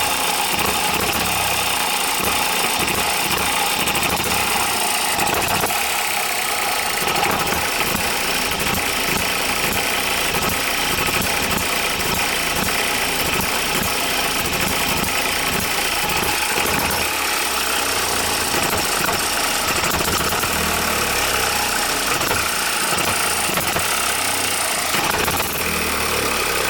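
OKMO Microcosm M92 miniature hit-and-miss engine running on lighter fuel mixed with a little oil, with a steady, rapid string of firing strokes and mechanical clatter.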